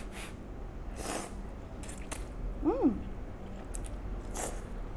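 A person blowing on and slurping hot, thick instant noodles in soup: a few short airy puffs and slurps, with a brief hummed 'mm' that falls in pitch about halfway through.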